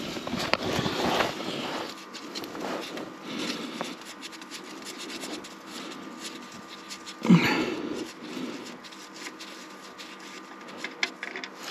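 Scraping and rustling of a jacket and tools, with small clicks, as the oil drain plug of a John Deere 6110 tractor is turned out with a socket on a long extension. One louder bump comes about seven seconds in.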